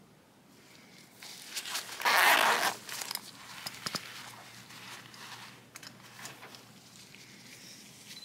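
Zipper on a fabric knife pouch pulled open in one quick raspy stroke about two seconds in, with shorter scratchy pulls around it, then light rustling and a few small clicks as the folding knife is handled.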